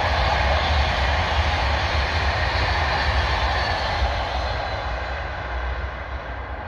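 Loud steady rumble of a passing vehicle, fading as it moves away over the last couple of seconds.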